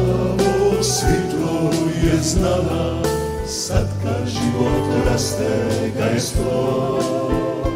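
Background music with singing voices over a steady bass line.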